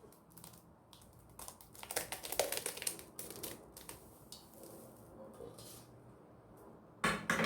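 Spoon scraping and knocking against cookware as meat sauce is spooned into a pot of spaghetti: a run of quick clicks and scrapes about two seconds in, and a louder knock near the end.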